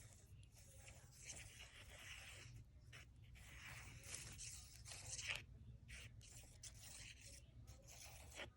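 Faint, irregular scratching and rustling in short patches, of the kind made by drawing on and handling paper and a plastic bag, over a steady low hum.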